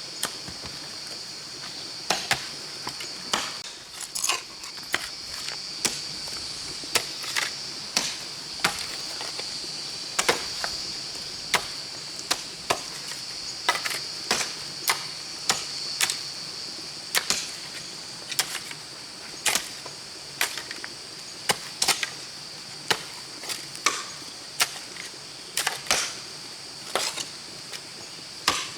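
Hand tool chopping into earth in a steady, uneven rhythm of about one stroke a second, the sound of a field being dug by hand. Under it runs a steady high drone of insects.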